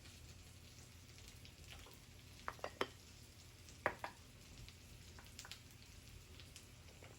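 Food frying quietly in a pan, a soft steady sizzle with scattered crackles, and a few sharp clicks about two and a half to four seconds in.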